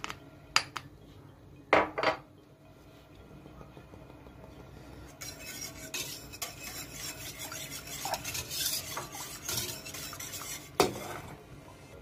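A few sharp knocks as a plastic sieve of starch is tapped against a steel pot, then from about five seconds in a wire whisk beating milk and starch, scraping and clinking against the steel pot, with one louder knock near the end.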